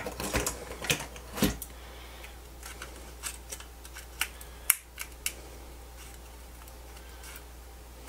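Plastic clicks and taps from handling and prying at the plastic display frame on a Fluke 87 V multimeter's circuit board. A cluster of sharp clicks comes in the first second and a half, then scattered lighter clicks until about five seconds in.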